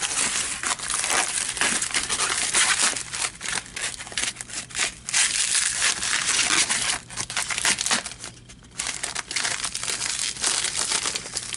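Package wrapping being crinkled and torn open by hand, a continuous dense crackling with a short lull about eight seconds in.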